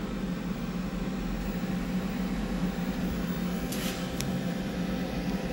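Milling machine running with a steady hum, with a short hiss a little before four seconds in.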